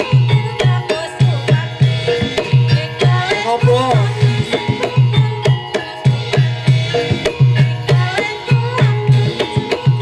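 Javanese gamelan music for a kuda lumping trance dance. Kendang hand drums beat a steady, driving rhythm of deep strokes over ringing, held metallophone tones, and a bending melody line rises and falls near the middle.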